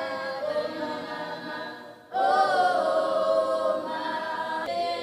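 A group of voices singing unaccompanied in held, sustained notes. The singing drops away for a moment about two seconds in and comes back louder.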